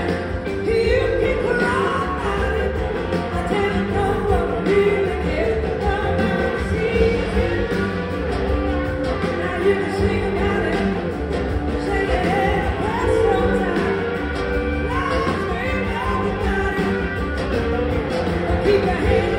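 Live band playing a rock song, with a lead vocal and backing singers over two drum kits, organ and electric guitars, recorded from the audience in a theater.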